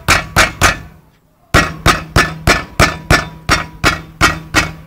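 Brake pad knocking back and forth inside the brake caliper of a VW Gol Bolinha: a rapid run of sharp knocks, about three or four a second, with a break of about a second near the start. The owner puts the rattle down to a slight play of the pad in a worn caliper.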